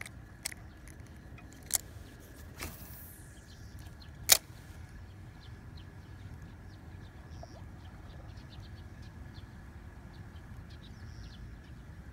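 A few sharp clicks and knocks, the loudest about four seconds in, over a steady low outdoor rumble, with faint small ticks later on.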